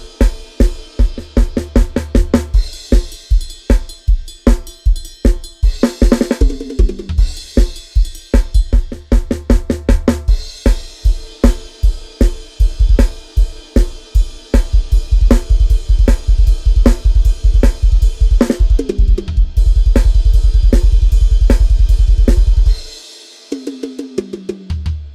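Sampled drum kit from Addictive Drums 2 playing grooves of kick, snare, hi-hat and cymbal crashes, with tom fills that step down in pitch. About twenty seconds in, a fast double-bass-drum roll runs for a few seconds and cuts off suddenly, followed by another tom fill.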